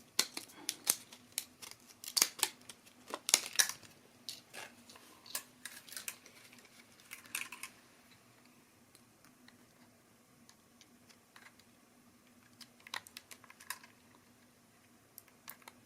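Hands handling small plastic items and packaging: a run of sharp clicks and taps for the first half, then a few scattered clicks near the end, over a faint steady low hum.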